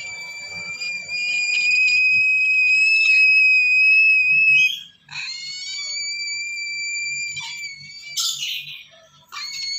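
Lesser sulphur-crested cockatoo chicks begging with long, steady, high whistle-like calls. The first call is the loudest and lasts almost five seconds, then a shorter one follows. A brief harsh squawk comes about eight seconds in, and another call starts near the end.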